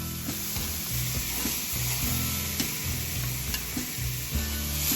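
Prime rib steaks and sausages sizzling steadily on a hot barbecue grill, with a few faint clicks.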